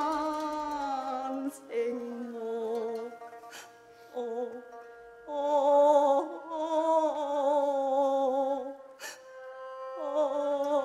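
Cantonese opera aria: a woman's sung voice holding long notes with a wavering vibrato, in slow phrases with short breaks, over a steady held note from the accompaniment. A few short sharp clicks fall between the phrases.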